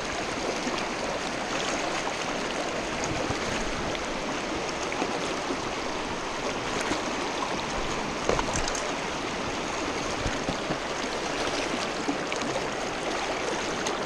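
Shallow, rocky mountain stream rushing steadily over rocks and riffles, with a few short sharp clicks over the wash, the sharpest about eight seconds in.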